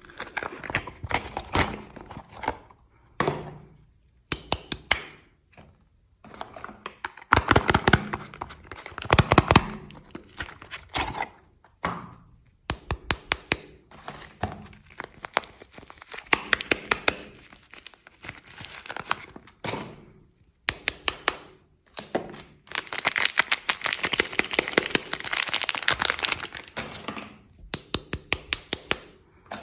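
Soap bars being unwrapped by hand: packaging crinkling and tearing, in spells of dense crackling with short pauses between them.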